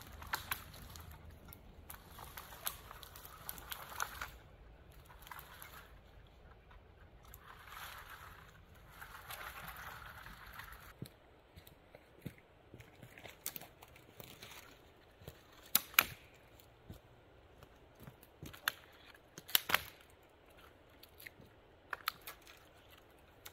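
Footsteps and a long wooden pole dragged rustling over a forest floor of dry needles, moss and twigs. After that come scattered sharp wooden knocks and cracks as the poles are handled, the loudest about two-thirds of the way through.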